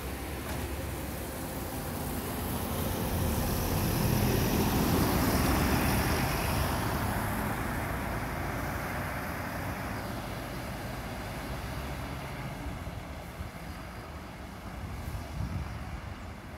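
An intercity coach bus driving past. Its engine and tyre noise swell to a peak about four to six seconds in, then fade as it pulls away.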